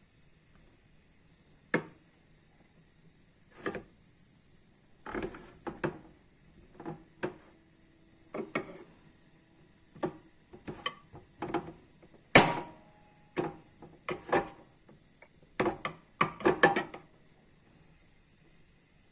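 Kitchen handling sounds: a series of irregular knocks, clicks and clinks of dishes and utensils being moved about.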